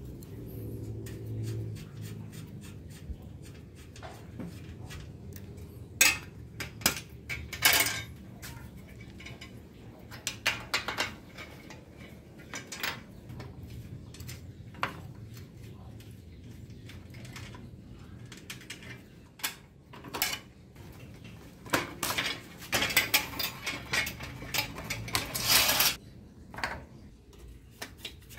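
Metal clinks and clatter of a spanner and steel parts being worked on an old bicycle's rear axle and frame: scattered sharp clicks, with a busier stretch of rattling about three-quarters of the way through.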